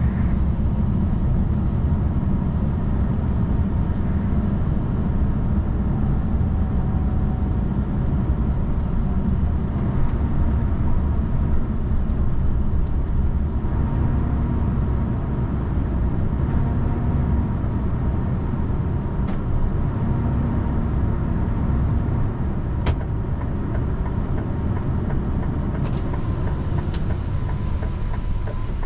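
Car driving in rain: steady low engine and road noise, with a few sharp clicks in the second half.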